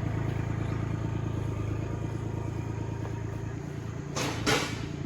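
An engine running steadily at a constant speed. About four seconds in there are two short hissing bursts.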